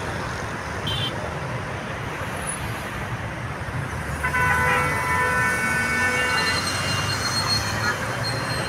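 Steady road traffic noise, with a vehicle horn sounding for about two seconds about halfway through.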